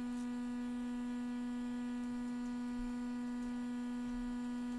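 A steady electrical hum: one low tone with a row of fainter overtones above it.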